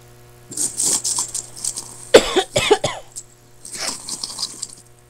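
A woman coughing in several fits. The loudest is a hard double cough about two seconds in, with breathy coughs before and after it.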